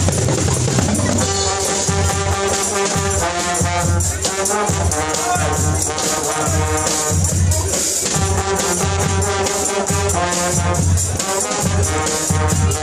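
Brass band music: trumpets playing a melody in held and changing notes over a steady low beat with shaker-like percussion.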